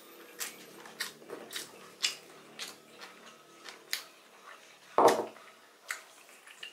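Close-up, open-mouthed chewing and lip smacks, roughly two a second, as grilled squid and chicken with rice are eaten by hand. About five seconds in comes one louder thump, a small ceramic sauce bowl set down on the table.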